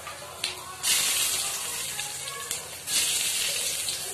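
Dried red chillies and fenugreek seeds sizzling in hot oil in a kadhai, the tempering for kadhi. The hiss swells sharply about a second in and again about three seconds in.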